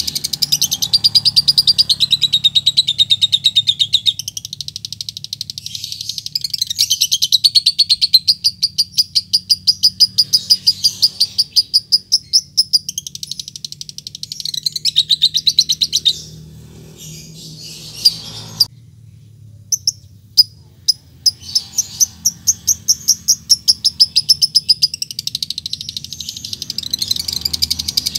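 Fischer's lovebird chattering in long runs of very rapid, high chirps (the 'ngekek' call), broken about two-thirds through by a few separate sharp ticking chirps before the fast chatter starts again. This is the call of a lovebird calling out to a rival.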